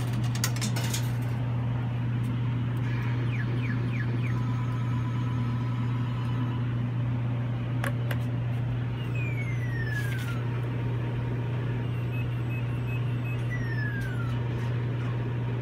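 Candy crane machine running: clicks as a token goes through the coin mechanism at the start, then short electronic beeps and several falling-pitch tone sweeps from the machine during play, over a steady low hum.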